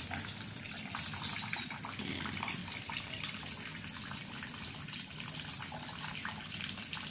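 Steady monsoon rain falling, a continuous hiss dotted with many small drop patters.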